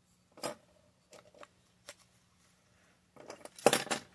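Plastic Lego train motor bogie and its metal wheels being handled and fitted together: a sharp click about half a second in, a few small clicks, then a louder rattling clatter near the end.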